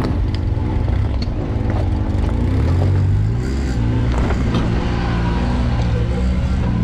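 Can-Am Maverick X3 side-by-side's turbocharged three-cylinder engine running under load off-road, its pitch rising and falling again and again as the throttle comes on and off. A few sharp knocks sound over it.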